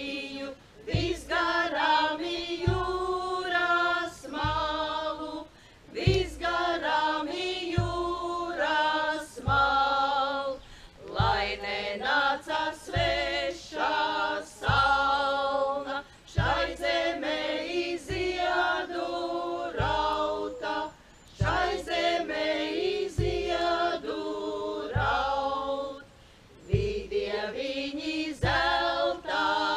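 A small group of women singing a Latvian Midsummer Līgo song together, unaccompanied, in short sung phrases with brief pauses for breath between them.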